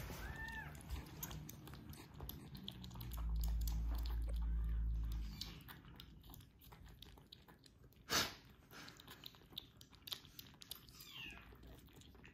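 Kittens lapping milk from ceramic bowls: a quick, irregular patter of small wet licking clicks. A low steady hum comes in for about two seconds around the middle, and there is one sharp knock about eight seconds in.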